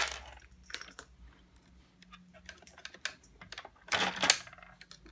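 Small clicks and rattles of needle-nose pliers and plastic-sheathed wire connectors being worked at on the switch inside an electric shower, with a louder burst of clicking about four seconds in.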